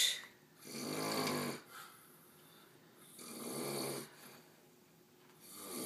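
A man snoring in his sleep: three long snores of about a second each, coming about every two and a half seconds.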